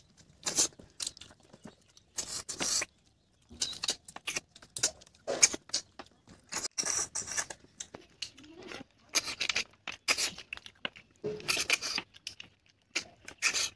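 Close eating sounds of cooked river snails being sucked out of their shells, in short irregular slurps with chewing in between.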